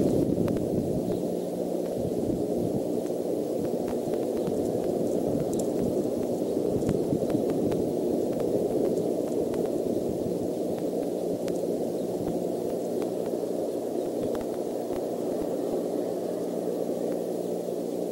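Steady rumbling hiss from an outdoor nest-cam microphone, with a faint hum under it and a few faint ticks.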